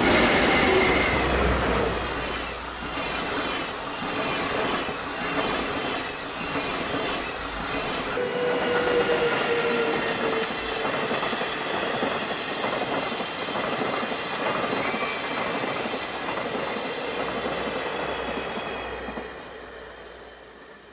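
Train running along the track: a steady rumble of wheels on rails with clickety-clack and some wheel squeal. The sound changes abruptly about eight seconds in and fades near the end.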